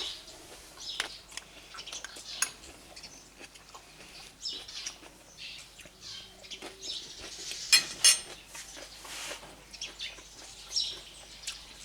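Cutlery clinking and scraping against a plate while eating, with two sharper clinks about eight seconds in.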